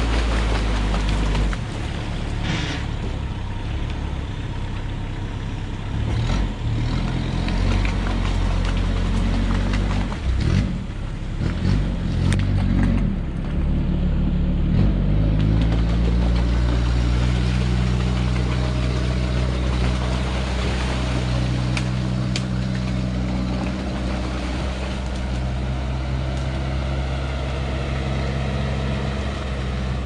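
Sherp amphibious ATV's diesel engine working under load as the machine wades through water, its big tyres churning and splashing. The engine speed rises and falls several times around the middle, then holds steady.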